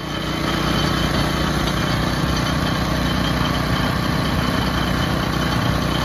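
Small Honda engine running steadily, belt-driving a sugarcane juice crusher.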